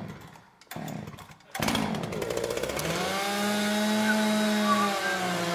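Lawnmower engine sound on a comedy stage: two short sputters, then it catches about a second and a half in and runs on as a steady drone.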